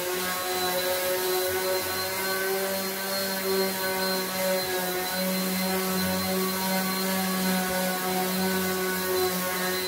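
Electric random orbital sander running steadily as it sands the face of a willow cricket bat blade: an even motor hum over a hiss.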